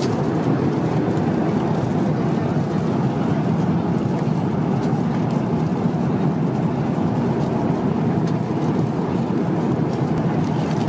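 Steady cabin noise inside an Airbus A350-900 in flight: an even rushing of airflow and engine noise heard from an economy seat, constant in level throughout.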